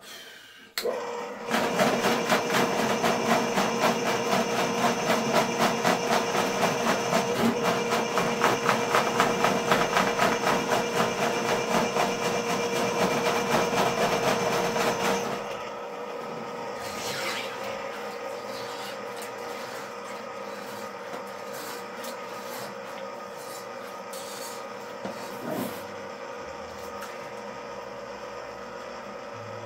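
Ridgid K50 sectional drain machine starting about a second in and spinning its cable down a floor drain with a fast, even clatter. Its motor tone holds steady. About halfway through the sound drops to a quieter, steady running. The machine is cutting roots out of the drain line.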